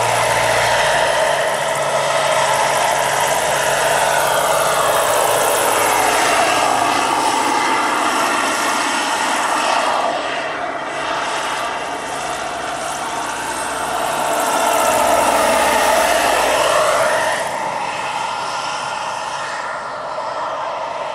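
Turbine engine and rotor blades of a giant-scale radio-controlled AH-64 Apache model helicopter in flight, a steady whine over the rotor noise. It swells twice as the model passes close, the whine sliding down in pitch and later back up as it goes by.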